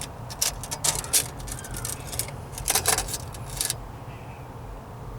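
Steel tape measure clicking and rattling as it is pulled out and laid across a rusted truck floor pan, a quick run of light metallic clicks that stops about three and a half seconds in, leaving a steady low hum.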